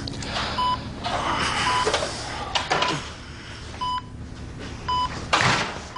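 Hospital bedside monitor beeping about once a second, a short high electronic beep each time, with some rustling between the beeps.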